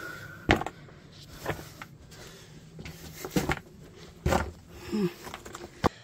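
Scattered knocks and scuffs, a handful of sharp ones, from people clambering through a narrow cave passage, with a brief grunt near the end. The sounds have the close, boxed-in sound of a small cave.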